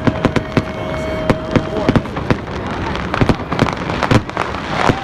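Fireworks display: a dense run of sharp bangs and crackles, one after another.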